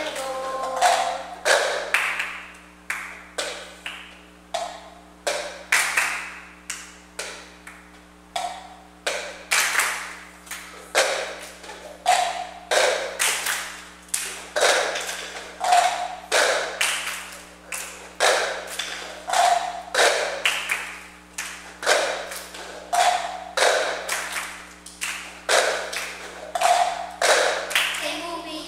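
A group of children clapping and tapping plastic cups on a tile floor, keeping a cup-game rhythm: a repeating pattern of sharp claps and knocks, one or two strikes a second.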